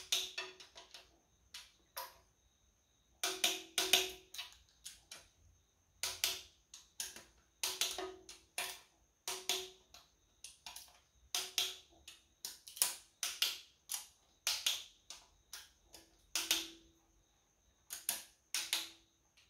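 Small Tool Pro click-type torque wrench clicking off again and again on the sump pan bolts, set at 10 newton metres. The bolts are already at torque, so each one clicks almost as soon as it is pulled; sharp clicks come singly and in quick groups of two or three.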